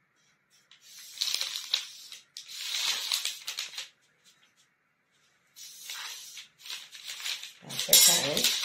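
Hands rubbing and smoothing fabric and sliding a metal ruler across it: several bursts of dry rustling and scraping, with a louder burst near the end.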